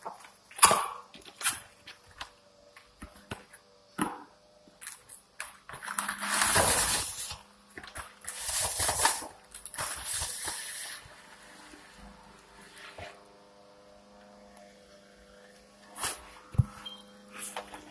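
A cardboard box of contractor trash bags being opened and handled: sharp taps and clicks of the cardboard, and two longer rustling bursts of the rolled plastic bags in the middle.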